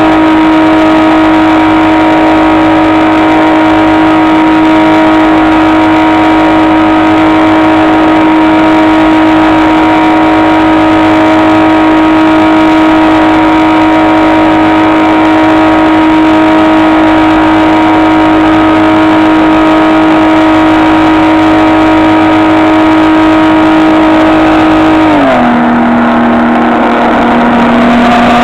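HobbyKing SkyEye FPV plane's electric motor and propeller running with a steady whine, then dropping quickly to a lower steady pitch about 25 seconds in as the throttle is eased back.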